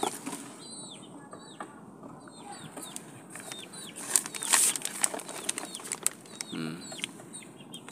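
Clear plastic wrapping crinkling and rustling as a new shock absorber is handled in its bag, loudest about four to five seconds in. Small birds chirp throughout in short falling chirps, and a brief low call comes about six and a half seconds in.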